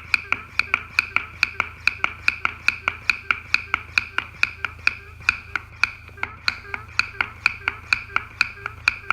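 Hand vacuum pump being pumped steadily on a Dive Xtras Smart Slice scooter's vacuum port, about three sharp clicks a second over a low hum, drawing the housing down to 5 inches of mercury for a pre-dive leak check.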